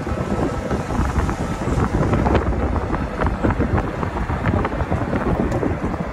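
Wind buffeting the microphone of a moving golf cart, a steady rumbling rush with constant crackling, over the cart's driving noise.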